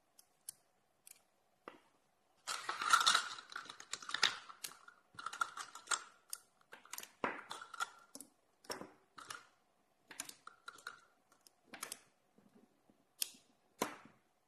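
Magnet cylinders from a polar pen and 17 mm steel balls clicking and clacking together as they are snapped on and pulled apart by hand: irregular sharp metallic clicks, a few at first, then a dense run for a couple of seconds, then scattered clicks, some with a brief ring.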